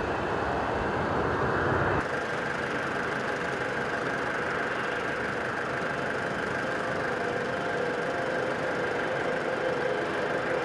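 The jet engines of a taxiing four-engine Ilyushin Il-96 airliner running at low power: a steady rushing hum with a thin whine. About two seconds in the sound changes abruptly and loses much of its deep rumble.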